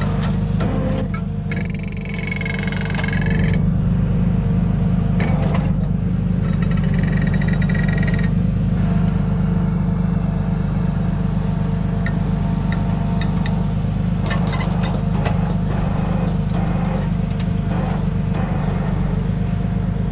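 Tow truck's engine running steadily while its winch drags an SUV up out of a ditch, with a few high-pitched squeals in the first eight seconds or so.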